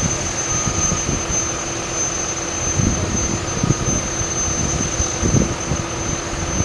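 Modified pulling tractor's engine running steadily far down the track, with a high, steady whine, while wind gusts on the microphone.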